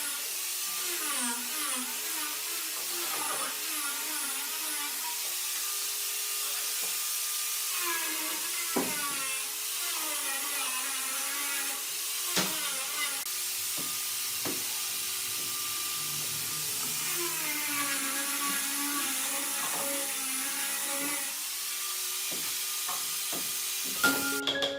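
A high-speed woodworking power tool running, its whine dipping in pitch and recovering again and again as it is loaded, over a strong hiss and a few sharp knocks.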